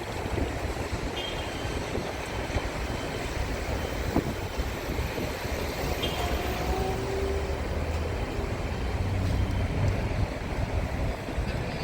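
Railway engineering maintenance vehicle's engine running with a steady low rumble while it is shunted.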